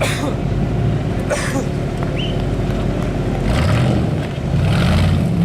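Off-road trial vehicle's engine running, its pitch rising as it revs up about three and a half seconds in, with several short rushes of noise over it.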